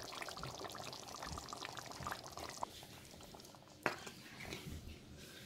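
Thick deer-meat curry simmering in a pot, cooked down until the oil has risen to the top, its gravy bubbling with many small quick pops that thin out about two and a half seconds in. A single sharp knock comes a little before four seconds in.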